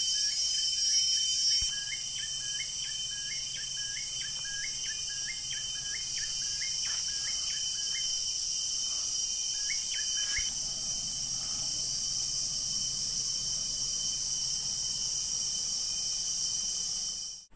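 Steady, dense high-pitched insect chorus. In the first ten seconds a short rising note repeats about once or twice a second, then stops.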